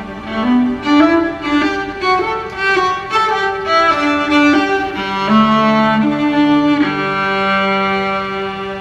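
Bowed strings, violin with cello below, playing a melody: short changing notes at first, then longer held notes from about five seconds in.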